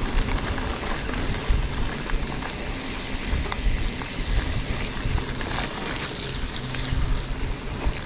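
Wind buffeting the microphone over the rumble of mountain bike tyres rolling along a rough, wet forest track, with a few sharp clicks from the bike.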